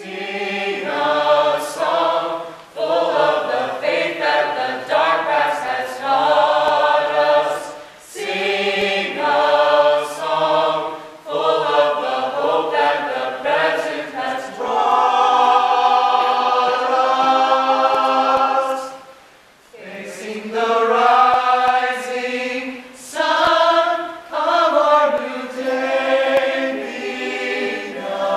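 Small mixed choir of men and women singing a cappella under a conductor, in phrases with short breaks between them; midway one chord is held for about four seconds.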